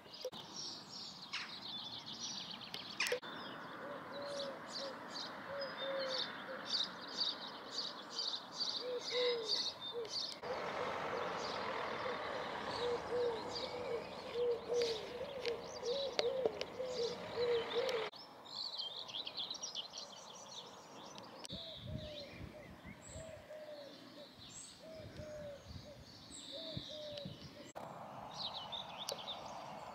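Garden birds singing and chirping, with a lower repeated call in runs through much of the time. The background noise changes abruptly several times.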